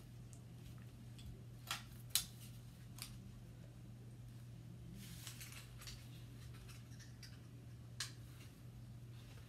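Handling of a plastic face mask and its adjustable straps: a few sharp clicks, the loudest about two seconds in and another near the end, with soft rustling in between as the straps are adjusted and fastened.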